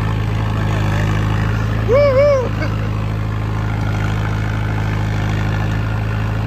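Mahindra Yuvo 575 DI tractor's four-cylinder diesel engine running steadily while pulling a 7-foot rotavator, heard from the driver's seat. About two seconds in, a short two-note pitched call rises and falls over the engine.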